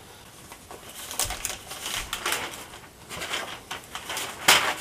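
Newspaper rustling and crackling as sheets are unfolded and spread out flat, in uneven crinkles with the loudest rustle near the end.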